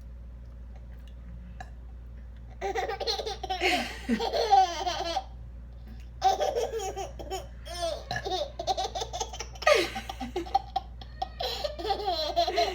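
A baby laughing hard in four bursts of high-pitched giggles and squeals, the first starting about two and a half seconds in.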